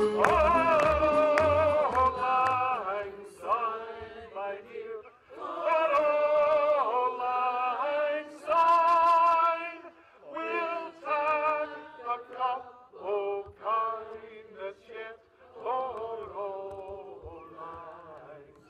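Music with singing: a sung melody in long held phrases broken by short pauses, over a steady low beat that drops out about two seconds in.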